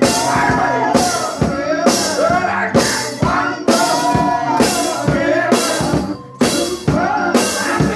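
Live gospel music: a man sings into a microphone over a drum kit keeping a steady beat of a little under one hit a second. The music drops back briefly about six seconds in.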